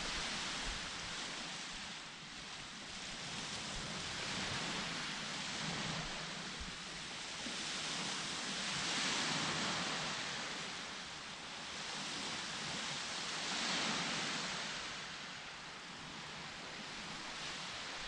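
Ocean waves washing onto a beach: a steady rushing surf that swells and eases every few seconds, loudest about halfway through and again near the three-quarter mark.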